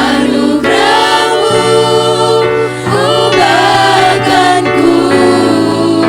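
Church choir singing a gospel worship song in phrases, several voices together over steady sustained low notes.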